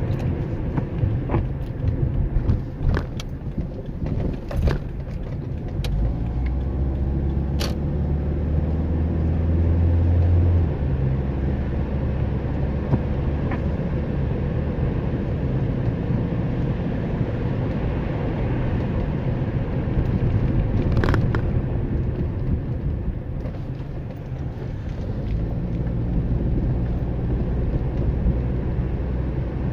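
A car driving, with a steady low rumble of engine and road noise that swells a little partway through. Scattered sharp ticks and knocks fall mostly in the first several seconds, with one more later.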